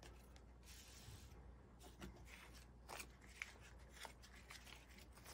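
Faint rustling of paper banknotes being counted by hand and laid down on a cloth-covered table, with a few soft taps in the middle, over a low room hum.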